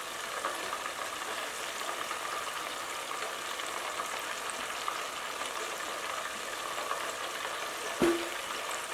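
Chicken wings deep-frying in hot oil in a stainless steel pot: a steady crackling sizzle. A single short metallic clink comes about eight seconds in.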